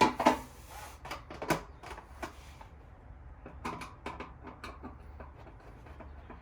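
Irregular clicks and clanks of hand tools on metal bolts and heater parts while the bolts are tightened, with a cluster in the first two seconds and another about four seconds in.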